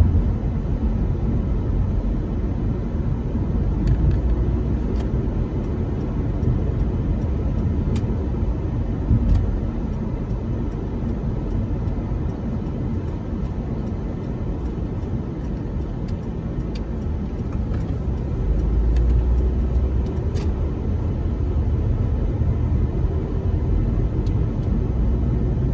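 Car interior noise while driving: a steady low rumble of engine and tyres on the road, heard from inside the cabin, with a few light clicks scattered through.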